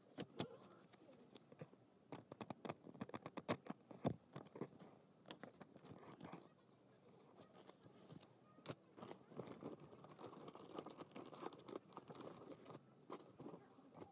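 Paper pages of a monthly planner being flipped: a quick run of page flicks over the first few seconds. Later comes softer rustling as the planner is handled.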